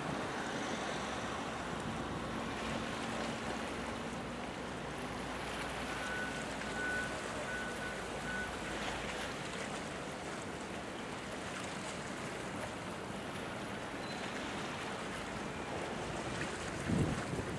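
Steady harbour sound of water wash and wind on the microphone, with a low rumble of ship engines that fades about halfway through. A short louder burst comes near the end.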